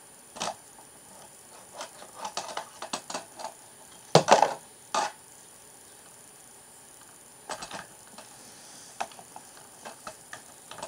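Plastic Lego bricks clicking and clattering as they are handled and picked out, in scattered light clicks with a louder clatter about four seconds in.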